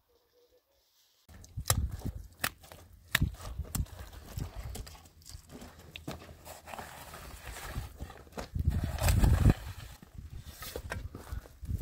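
Irregular steps and sharp knocks on hard ground over a low rumble, starting about a second in after near silence.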